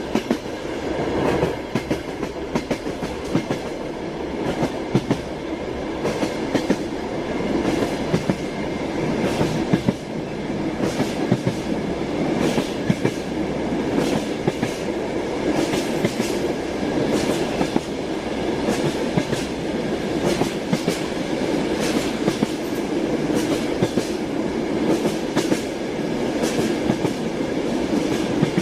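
Russian Railways train wheels clattering over rail joints as the train runs along: a steady rumble with sharp clickety-clack knocks that come again and again in quick groups.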